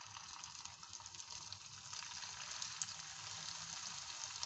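Potato-and-cornflour bites frying in hot oil in a small pan: a steady sizzle with fine crackling.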